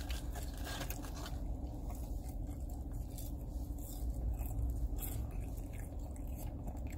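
A person chewing a mouthful of burger with the mouth closed: soft, irregular mouth clicks and smacks over a steady low hum.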